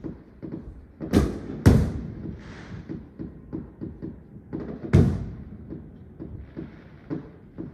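Fireworks going off: a steady scatter of pops and cracks, with three loud shell bursts, two close together about a second in and one about five seconds in, each trailing off in an echo.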